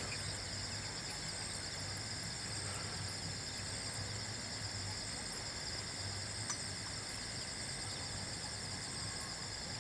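Crickets chirring in a steady, unbroken night chorus, a high continuous trill.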